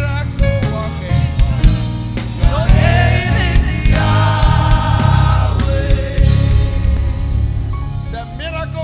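Loud gospel worship music with singing over a drum kit and heavy bass.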